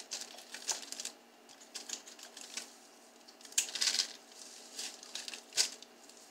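Kitchen scissors snipping fully cooked chicken into bite-size pieces: a few irregular, sharp snips, with light crinkling of a plastic slow-cooker liner.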